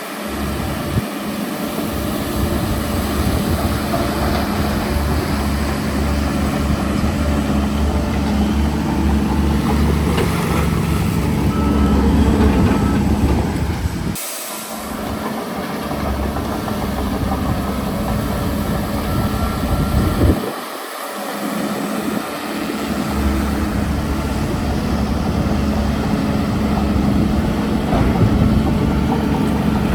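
Heavy diesel engines of earthmoving machinery, a dump truck and bulldozer, running steadily with a deep low rumble. The rumble drops out briefly twice, about halfway through and again a few seconds later.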